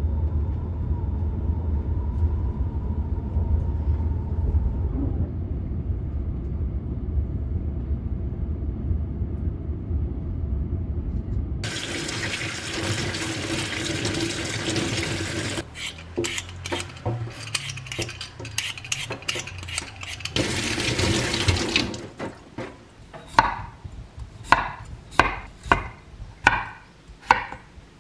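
Steady low rumble inside a moving train carriage. About twelve seconds in, a kitchen tap runs onto hands in a stainless-steel sink, in two spells with light clatter between. It ends with a kitchen knife chopping potatoes on a wooden board: about eight strokes, roughly two a second.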